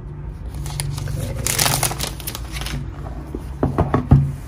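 Clear plastic shrink-wrap crinkling as it is handled and pushed aside, then a few light knocks and clicks as the cardboard phone box is handled, about three and a half seconds in.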